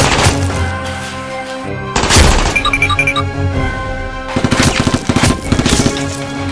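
Action background music with gunfire sound effects laid over it: a loud shot about two seconds in, then a rapid string of shots in the second half.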